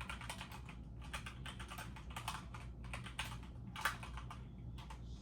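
Computer keyboard typing: irregular clicks of keystrokes, one sharper tap a little before four seconds in, over a low steady hum.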